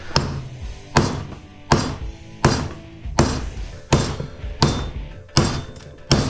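Hammer blows on a machete wedged into a large electric motor's steel stator, splitting the stator to free its copper windings. A steady run of nine strikes, about three every two seconds.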